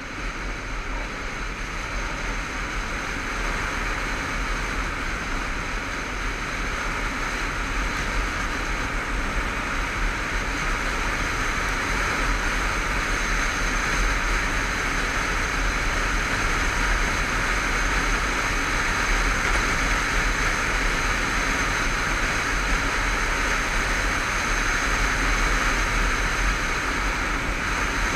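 Wind rushing over the microphone of a motorcycle-mounted camera, with the motorcycle's engine and road noise underneath, growing louder over the first dozen seconds as the bike picks up speed and then holding steady.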